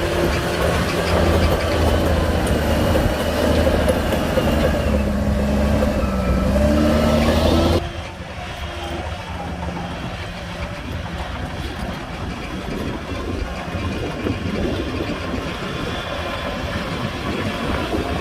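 Heavy diesel engines of earthmoving machinery, a bulldozer and dump trucks, running under load with a wavering whine. About eight seconds in it drops abruptly to a quieter, rougher engine rumble.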